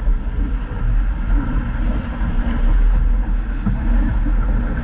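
Steady wind buffeting on the microphone of a camera mounted on a small sailing dinghy, mixed with the rushing and splashing of the bow wave along the hull as the boat sails fast under spinnaker.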